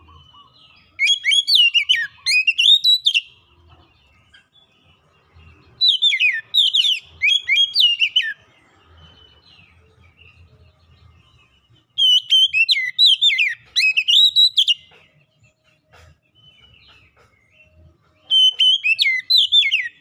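Oriental magpie-robin (kacer) singing: four bursts of rapid, varied whistled phrases, each about two to three seconds long, separated by short pauses.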